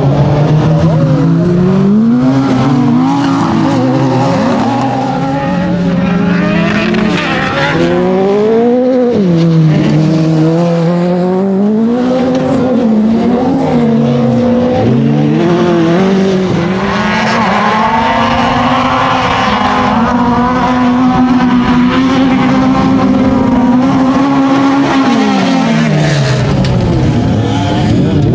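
Autocross race car engines at full throttle, revving up and dropping again and again through gear changes and lifts. Near the end one engine is held at high revs for several seconds, then falls away.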